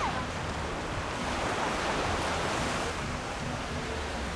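Wind and surf: an even rushing noise that swells slightly in the middle, with wind buffeting the microphone. A short falling chirp sounds right at the start.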